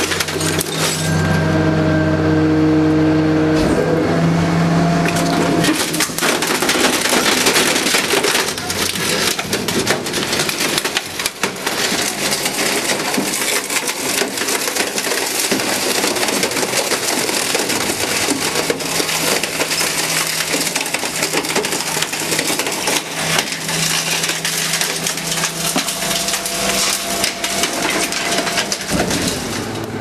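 A garbage truck's packing mechanism crushing a washing machine: many sharp cracks, crunches and splintering sounds as the machine's casing and parts break up. A steady machine hum from the truck runs under the first few seconds and comes back near the end.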